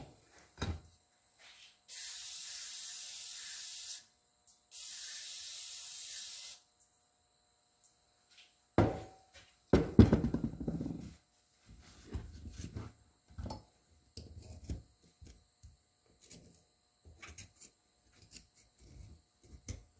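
Two sprays from an aerosol can of brake cleaner into a brake slave cylinder, each a steady hiss of about two seconds. A few seconds later, a loud clatter, then a run of light knocks and taps.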